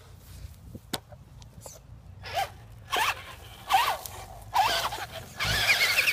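Battery-powered RC monster truck's electric motor revving in about five short throttle bursts from about two seconds in, a rasping whine that rises and falls in pitch with each burst.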